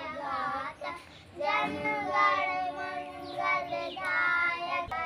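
A young girl singing a song in held, sung notes, with a short break about a second in.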